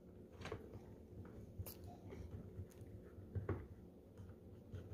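Faint, scattered small clicks and scratches of a screwdriver and fingers working a screw on the plastic back housing of a soundbar, the clearest click about three and a half seconds in, over a low steady room hum.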